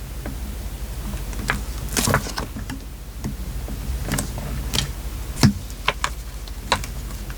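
Paper crafting at a desk: scattered light taps, clicks and paper rustles as hands lay paper pieces and stickers onto a journal page, with a steady low hum underneath.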